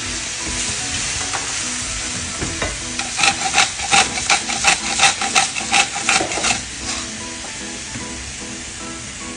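Sliced king oyster mushrooms sizzling as they go into hot oil in a frying pan. From about three seconds in until nearly seven, a hand salt grinder ratchets over the pan at about four clicks a second. Faint background music runs underneath.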